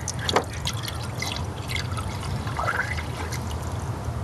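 Distilled water poured from a half-gallon jug into the radiator's filler neck, trickling steadily as it tops up the cooling system until the radiator is full. A sharp tick sounds about half a second in.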